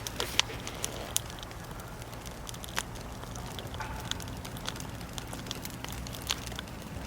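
Campfire of burning wood crackling, with irregular sharp pops and snaps.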